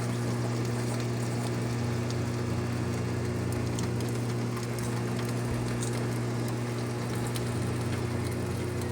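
Rain pattering, under a steady low hum, with a few faint ticks.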